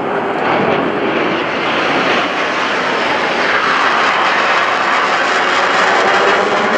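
Jet noise from an F/A-18 Hornet's twin General Electric F404 turbofan engines as the fighter flies overhead. The noise is steady and loud, and grows strongest a little past halfway.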